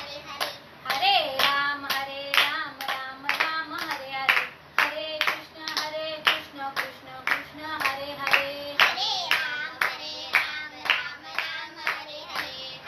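A woman singing a devotional chant solo, keeping time with a steady beat of hand claps.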